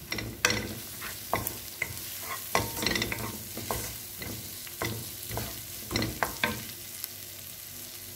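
Wooden spatula stirring sliced onions and garlic frying in oil in a nonstick wok: irregular scrapes and taps against the pan over a steady sizzle.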